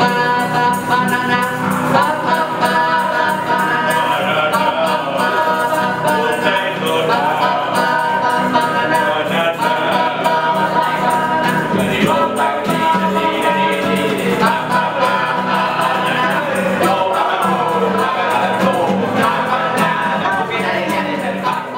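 A mixed group of young men and women singing together to an acoustic guitar, at a steady beat.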